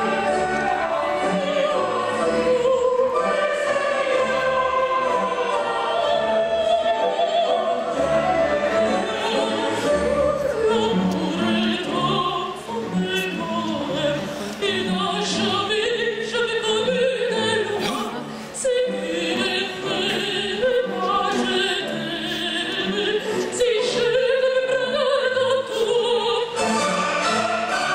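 Live operatic singing with vibrato over an orchestra, with a chorus joining in.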